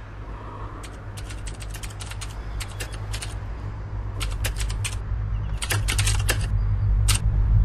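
Film soundtrack: a low steady drone swelling louder throughout, with irregular bursts of rapid sharp clicking over it, clicks that are densest around the middle and near the end.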